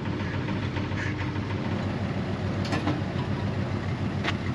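Truck engine idling steadily, with a couple of sharp clicks or knocks late on.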